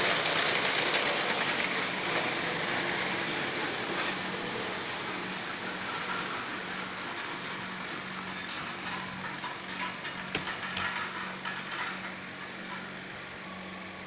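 Wood-processing machinery running, with a steady low hum under a dense mechanical rattle, growing gradually quieter.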